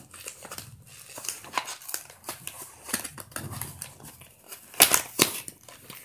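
Cardboard box with a clear plastic window being opened by hand: irregular rustling, crinkling and small clicks as the flap is pulled and the inner tray slid out. Two sharper, louder snaps come close together near the end.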